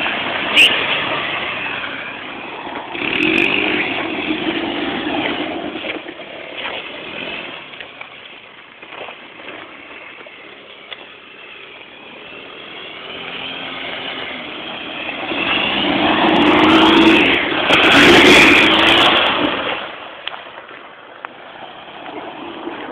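ATV engine running and revving as it is ridden, its pitch rising and falling. It swells louder briefly about three seconds in and again for several seconds near the end, quieter in between.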